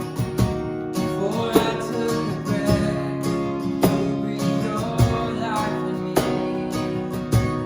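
Live worship band playing: strummed acoustic guitar chords with regular drum hits, and a voice singing through the middle.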